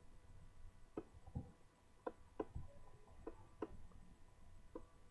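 Faint computer mouse clicks, about eight sharp ones at uneven intervals, as strokes are drawn on screen.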